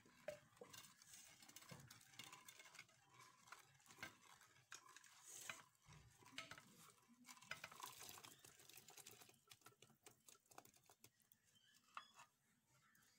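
Faint stirring of curry in a clay pot with a long wooden-handled ladle: soft scraping and irregular small knocks of the ladle against the pot, with a sharper knock near the end.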